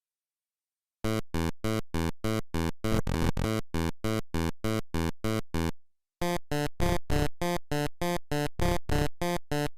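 Music: a fast run of short, evenly spaced synth-like notes, about three or four a second, starting about a second in, with a brief break past the middle.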